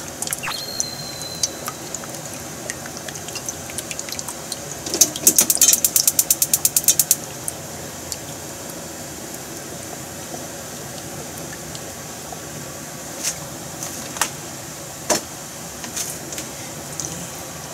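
Cooking oil glugging out of a plastic jug as it is poured into a wok, a rapid run of about ten glugs a second for roughly two seconds, then a few scattered clicks and knocks over a steady hiss.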